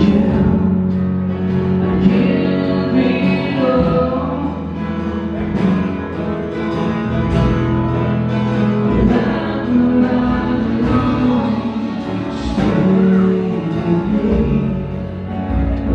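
Music with singing voices, held, choir-like notes.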